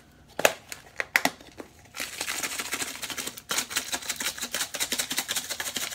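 Garlic powder being shaken from a spice shaker: a few sharp clicks as the container is handled and opened, then about four seconds of rapid rattling shakes.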